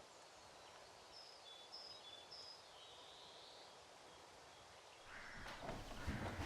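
Faint outdoor ambience with a few short, high bird chirps and one sliding bird call. In the last second and a half a rustling noise grows louder.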